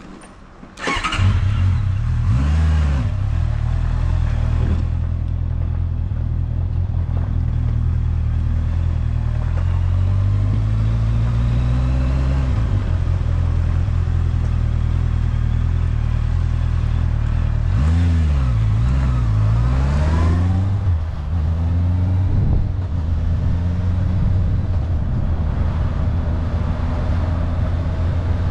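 Honda CBR650F's inline-four engine starting about a second in, then running at idle. The throttle is blipped shortly after start-up, and again near the middle and about two-thirds of the way through, with the revs rising and falling.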